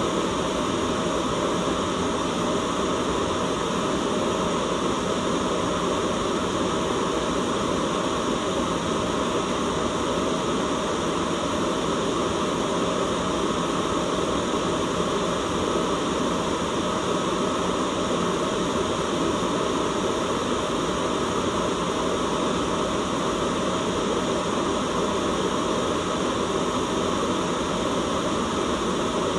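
Steady white noise: an even, unbroken hiss with no change in level.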